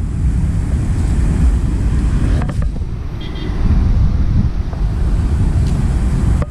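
Wind buffeting the microphone, a heavy low rumble, with one faint click about two and a half seconds in.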